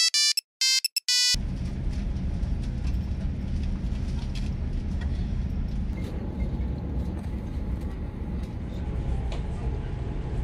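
A few short electronic beeps from a Nokia 3310 playing Snake, which cut off about a second in. They give way to the steady low rumble of an airliner cabin parked at the gate, with faint scattered clicks.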